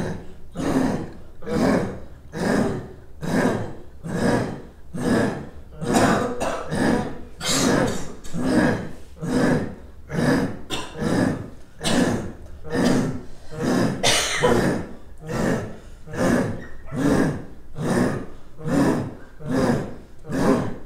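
Throat-singing exercise: short guttural vocal pulses repeated in a steady rhythm.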